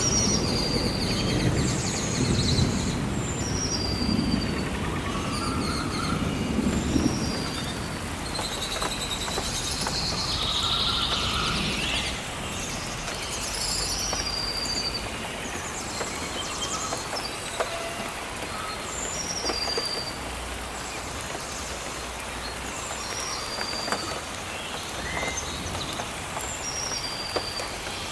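Steady rain falling in a forest, with birds giving short, high chirps over and over, with a few faint drip-like ticks. A low rumble sits under it for the first seven seconds or so, then fades.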